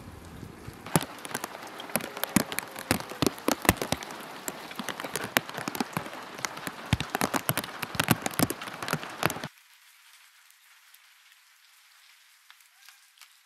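Rain falling, with many sharp, close drops pattering and dripping off a sheet-metal roof edge. It cuts off abruptly after about nine and a half seconds, leaving only a faint hiss.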